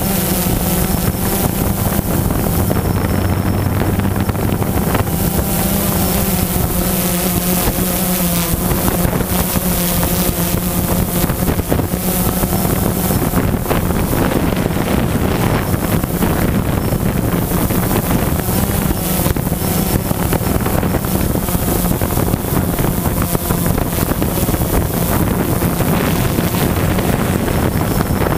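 DJI Phantom 2 quadcopter's four electric motors and propellers buzzing in flight, a steady hum whose pitch wavers a little, with wind rushing over the onboard microphone.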